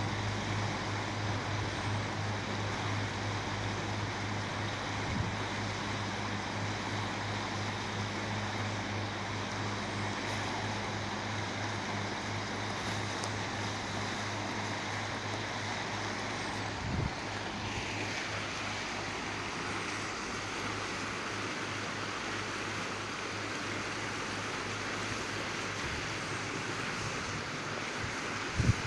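Steady outdoor rushing noise with a low steady hum that fades out a little past halfway, and a brief thump just after the hum fades and another near the end.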